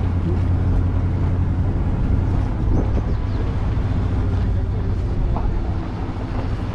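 Engine of an open-sided tour vehicle running steadily as it drives along, a constant low hum heard from on board.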